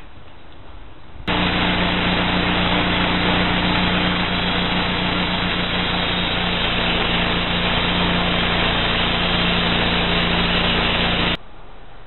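Small gasoline engine of a homemade band sawmill running steadily under load while the band blade cuts through a mesquite log: a steady engine hum over a dense hiss of the cut. It cuts in abruptly about a second in and cuts off abruptly near the end.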